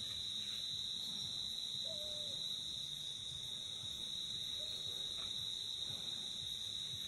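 Night forest ambience: a steady high-pitched insect drone throughout, with two faint short calls, about two seconds and four and a half seconds in.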